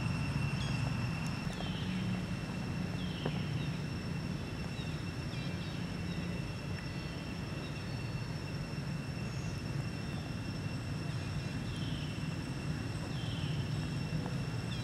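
Outdoor ambience: a steady low rumble and a steady high whine, with a few short falling chirps from an animal about 1, 3, 12 and 13 seconds in.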